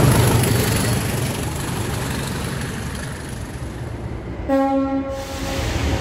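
Diesel locomotives passing at speed, their rumble dying away, then one short blast of a locomotive horn about four and a half seconds in.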